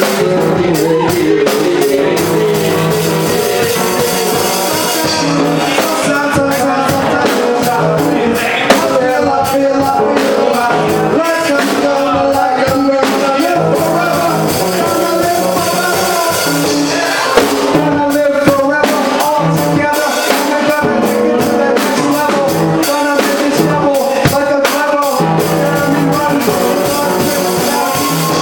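Live band playing a loud rock-style jam: electric guitar and drum kit over a steady beat.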